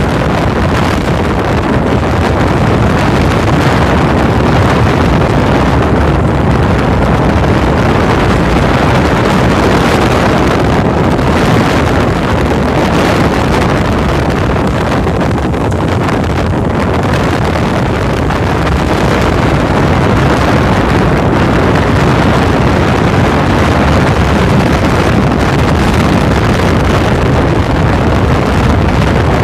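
Wind buffeting the microphone on the open deck of a moving cruise boat, over the steady run of the boat's engine. It is a loud, even rush with a heavy low rumble that doesn't change.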